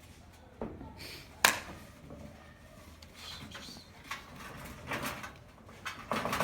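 Puppies playing: scattered knocks and scuffles, with one sharp click about a second and a half in and a few short, high squeaks in the middle.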